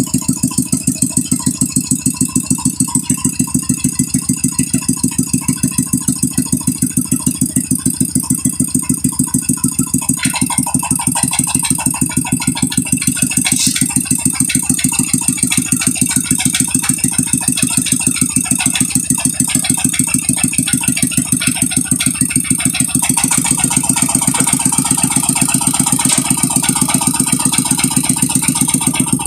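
Brick-making machine running: a steady, fast, even rattle of rapid beats that carries on without a break, growing a little louder about three quarters of the way through.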